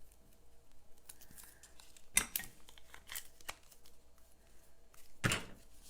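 Handling of small cut-out paper pieces: paper rustling and crinkling in a few short, sharp bursts, about two, three and five seconds in.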